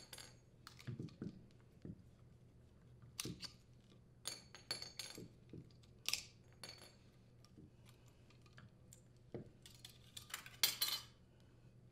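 Steel support arms and a metal mounting bracket clinking and knocking as they are taken off a furnace blower motor and set down, with a short scraping rattle near the end as the bracket band slides off the motor's shell.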